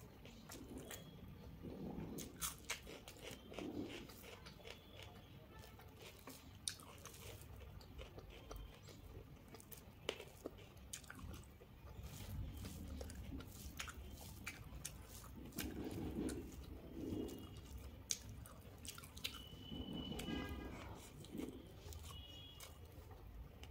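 Close-up eating sounds of rice eaten by hand: chewing with small crunches, and soft clicks and squishes of fingers mixing rice and mashed bhorta on a metal thali.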